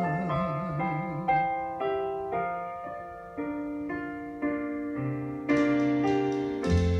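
Recorded ballad played back through ELAC B6 bookshelf speakers driven by a Marantz amplifier: a sung note with vibrato fades out in the first second and a half, then a solo piano plays a slow run of single notes, and a bass line joins about five seconds in.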